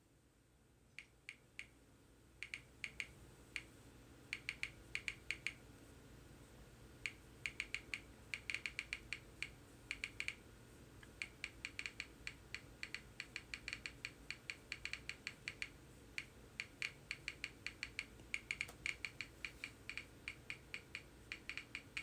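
Faint typing clicks, keystroke after keystroke in quick runs with short pauses, starting about a second in, over a low steady hum.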